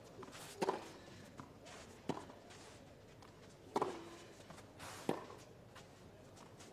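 Tennis ball struck back and forth in a baseline rally: four crisp racket hits about a second and a half apart.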